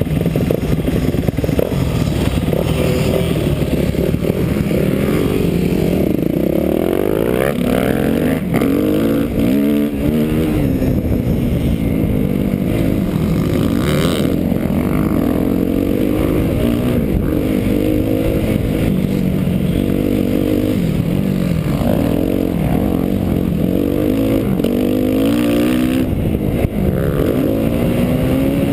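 Motocross bike engine heard on board while riding a dirt track, its revs climbing and dropping over and over as the rider accelerates and backs off.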